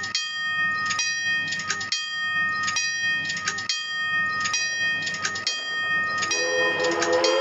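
A bell rings in a steady rhythm, about one strike a second. About six seconds in, a multi-note train horn starts to sound over it and grows louder as the train nears.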